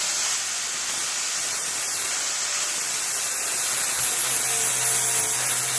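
Electric angle grinder grinding down welds on a steel truck frame to check them, a steady loud hiss of abrasion under a very high motor whine whose pitch dips and recovers as the load changes.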